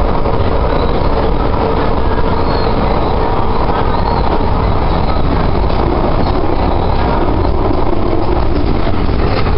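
Calgary C-Train light-rail car running at speed, heard from inside the car: a steady rumble of wheels on rails with a faint steady whine.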